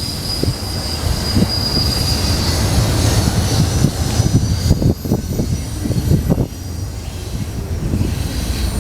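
Container cars of an intermodal freight train rolling past: a steady low rumble of wheels on rail, with a thin high wheel squeal through the first few seconds and again near the end, and scattered clanks in the middle.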